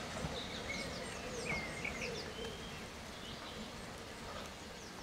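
Several small birds singing, with many short falling chirps and a few whistled notes, over a steady low rumble.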